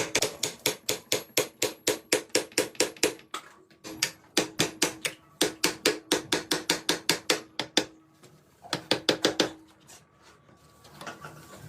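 Rapid hammer blows, about four a second, in three runs separated by short pauses, the last run brief, with a faint ringing tone under the strikes.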